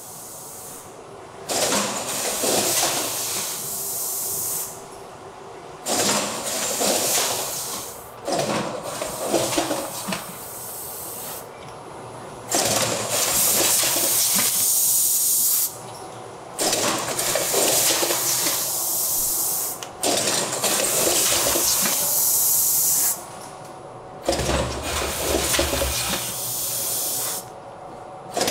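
Automatic pouch-filling packaging machinery running, with loud hisses of compressed air every three to four seconds, each lasting one to three seconds. A low hum joins in for a couple of seconds near the end.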